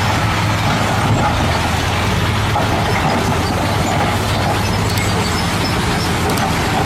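Heavy truck engine running steadily with a low hum.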